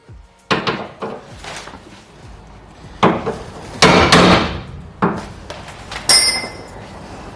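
A series of irregular hammer blows on the metal of a car's underside, about seven or eight strikes. The heaviest cluster comes around the middle, and one strike near the end rings.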